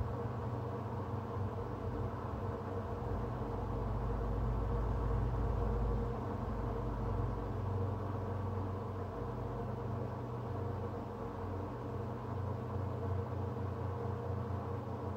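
Steady mechanical hum made of several steady tones over a low background noise. A deeper rumble swells about three seconds in and eases off around seven seconds.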